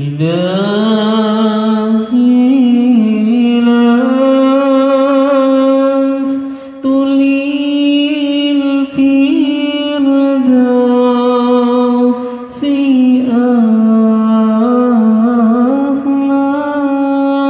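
A man singing a slow, drawn-out Islamic devotional chant (shalawat) through a microphone, amplifier and speakers. He holds long steady notes with small ornamented turns and breaks briefly for breath about 6, 9 and 12.5 seconds in.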